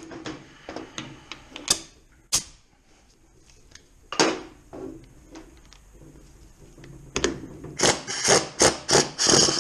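Metal-on-metal clinks and knocks of hand tools against gearbox parts during a strip-down. A few separate knocks come first, then a quick run of about eight sharp strikes near the end.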